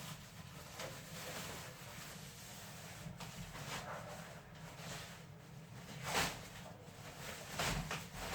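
Irregular rustling and handling noises as packaging is worked, with a sharper rustle or knock about six seconds in and another near the end, over a low steady hum.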